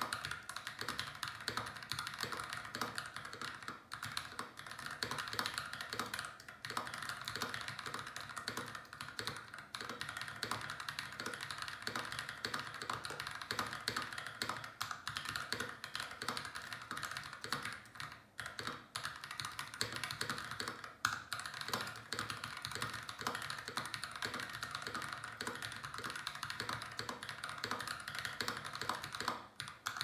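Continuous fast typing on a RAMA M60-A mechanical keyboard with unlubed Holy Mint Panda tactile switches (Yok Mint Panda housings, Halo stems, 67 g Cherry MX gold-plated springs): a dense run of key clacks broken by a few brief pauses.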